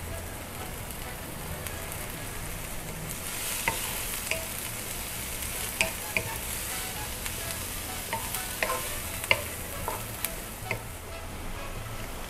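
Chopped onion and garlic sizzling in hot oil in a nonstick wok, stirred with a wooden spoon. The sizzle gets brighter about three seconds in, and the spoon knocks and scrapes against the pan in scattered sharp clicks from then on.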